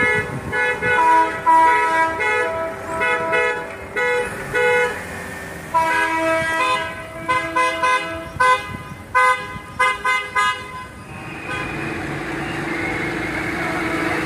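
Car horns of a vehicle convoy honking over and over in short and longer blasts, several horns at different pitches overlapping. About eleven seconds in the honking stops and a steady engine hum takes over.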